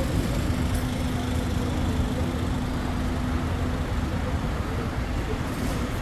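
City street traffic: a steady low rumble of vehicles, with a low steady hum that stops about four seconds in.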